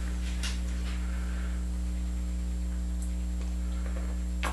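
Steady low electrical mains hum. A couple of faint clicks break it, the sharpest near the end.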